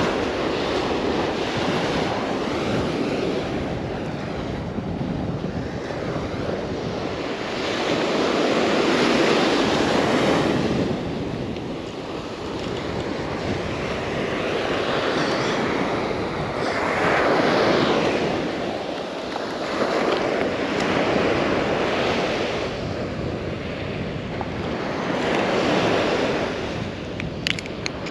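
Ocean surf breaking and washing up the beach, swelling and fading every several seconds, with wind on the microphone.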